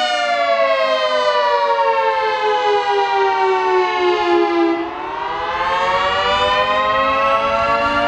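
Federal Signal 3T22 three-tone outdoor warning siren sounding the attack signal, its chord of tones sliding slowly down in pitch for about five seconds, then rising again. The sound dips in loudness at the low point of the slide.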